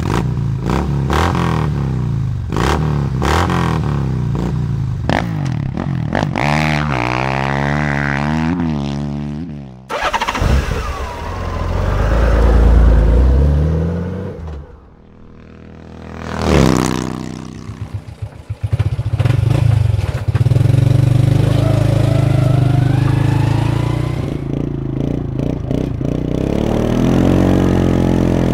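A string of motorcycle, ATV and snowmobile engine recordings. Engines rev up and down for the first ten seconds, followed by a loud low rumble. A vehicle passes by about sixteen seconds in, and from about twenty seconds an engine runs steadily.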